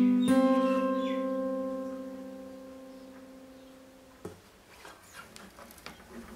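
Acoustic guitar's final chord struck and left to ring, fading slowly for about four seconds until it is stopped by a soft knock. Faint clicks and rustles follow as the guitar is handled.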